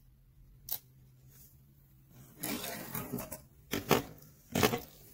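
Handling noises from a disassembled camera body: one small click about a second in, then rustling and clicking of parts against the casing from about halfway, with two sharp knocks near the end.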